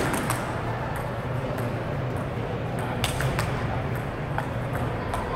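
Table tennis ball being struck back and forth in a rally, sharp clicks of ball on bat and table, the loudest right at the start and about three seconds in. Fainter ball clicks from other tables sound between them over a steady low hum.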